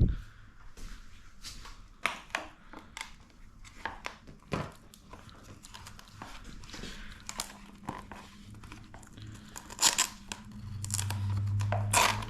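Scattered light clicks, taps and rustling from hands and tools working on a dirt bike's plastic bodywork and fasteners. A low hum builds up near the end.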